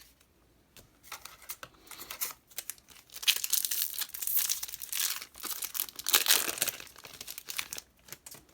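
A foil trading-card booster pack wrapper being crinkled and torn open by hand, loudest in the middle.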